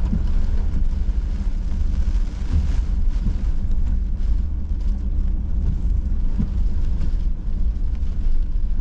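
Steady low rumble of a car driving, heard from inside the cabin, under an even hiss of heavy rain on the car, with the windshield wipers running.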